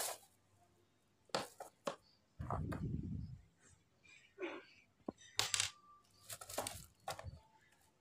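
Scattered light clicks and clinks with a few short rustles of handling, separated by silences.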